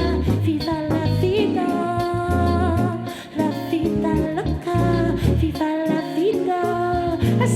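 Live band performing a soul/afrobeats song, with held sung notes over a steady bass line.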